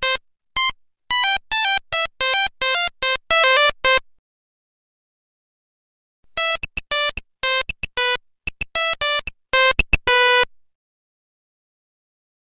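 Nokia 1100 monophonic ringtone: a quick melody of short beeping notes, one at a time, played twice with a silent gap of about two seconds between.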